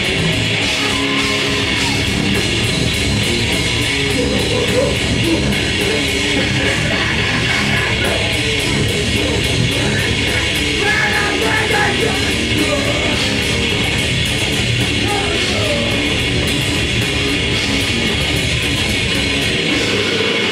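Grindcore band playing live and loud: distorted electric guitars and fast drums with shouted vocals.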